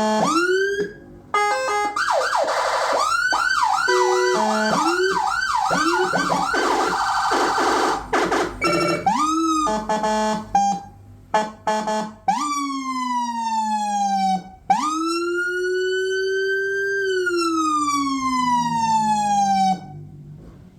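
Electronic emergency-vehicle siren cycling through its tones. A fast up-and-down yelp warbles about twice a second for several seconds, followed by a few short chirps. It then switches to slow wail sweeps that rise, hold and fall away, and cuts off near the end.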